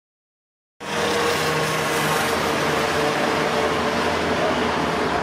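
Dead silence for under a second, then steady outdoor background noise cuts in abruptly: the even hum of road traffic, with faint voices in it.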